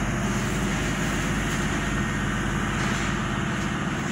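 Tyne and Wear Metro train running, heard from inside the carriage: a steady low traction hum over the rumble of wheels on the rails.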